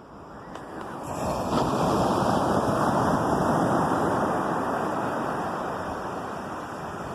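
Ocean waves on a shore. One wave swells over the first two seconds, breaks, and its wash slowly fades.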